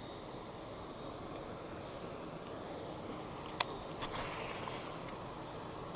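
Quiet open-water ambience with a steady low hiss, a single sharp click about three and a half seconds in, then a brief splash a moment later: a fish jumping at the surface.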